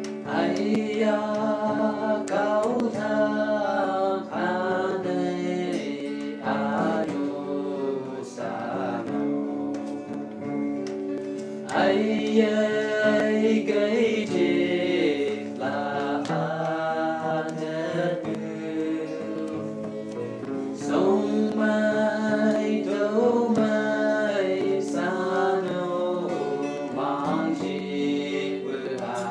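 A song: a voice singing a melody over plucked guitar accompaniment.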